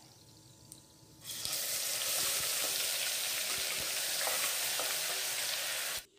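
Chopped onions hitting hot oil and whole spices (cumin, bay leaf) in an aluminium pressure cooker: a faint sizzle jumps to a dense, steady frying sizzle about a second in, with a spatula stirring. The sound cuts off suddenly near the end.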